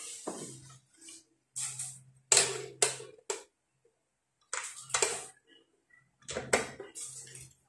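Hand screwdriver working screws at the circuit board of an opened audio amplifier: irregular clicks, ticks and short scrapes of metal on metal.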